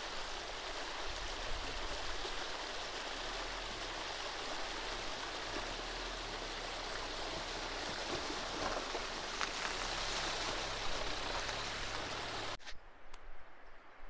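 Shallow stream rushing steadily over stones as a Dacia Duster SUV drives through the ford, its wheels churning the water, with a low hum underneath. The sound cuts off suddenly about twelve and a half seconds in, leaving much quieter outdoor sound.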